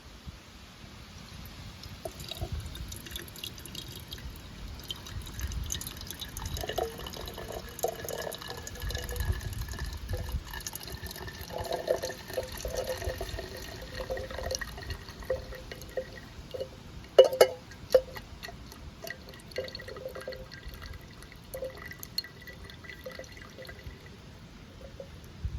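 Liquid trickling and dripping in uneven, bubbly blips, with a brief cluster of sharp knocks about two-thirds of the way through.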